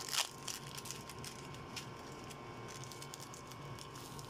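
Pot of chicken pieces at a boil, the broth bubbling with many small irregular pops and crackles. A sharper click sounds just after the start.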